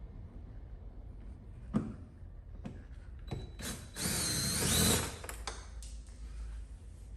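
A cordless drill-driver spins for about a second, its whine bending in pitch as it backs out a door-panel bolt. Scattered clicks and a sharp knock from handling the tool and trim come before it.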